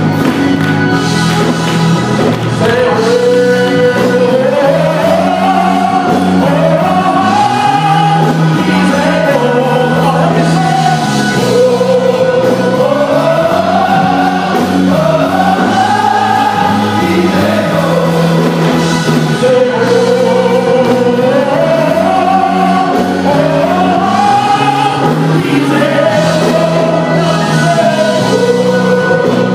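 Gospel choir singing a song in phrases that rise and fall, over steady instrumental accompaniment.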